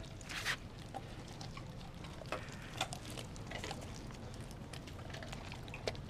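Dog mouthing and chewing a raw whole chicken: irregular wet smacking, licking and tearing sounds with scattered sharp clicks.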